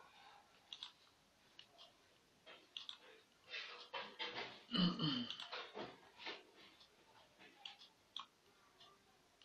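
Irregular light clicks of a computer mouse as a web page is scrolled, thickening into a louder jumble of clicks and rustling about halfway through, with a brief low pitched sound near the middle.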